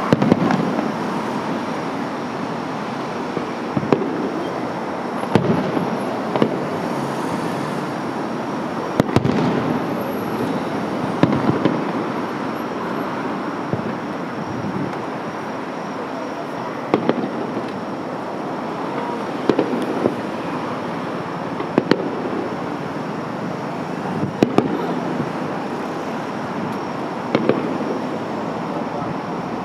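Aerial fireworks shells exploding in a display: about a dozen sharp bangs, spaced irregularly from one to a few seconds apart, over a steady outdoor background noise.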